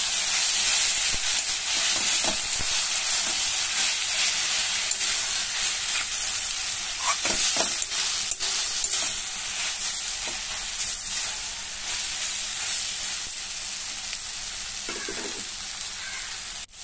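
Onions, tomato and capsicum sizzling in hot mustard oil in a metal kadai, stirred with a metal spatula that scrapes and clicks against the pan now and then. The sizzle slowly grows quieter toward the end.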